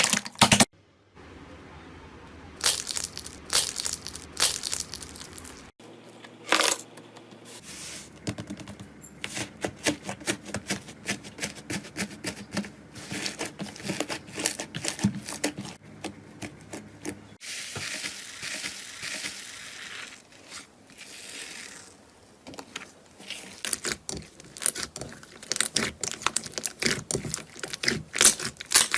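Slime being squeezed and poked by hand, with dense wet clicks and crackles. The sound changes abruptly about a second in, about six seconds in and around seventeen seconds in, as one clip gives way to another.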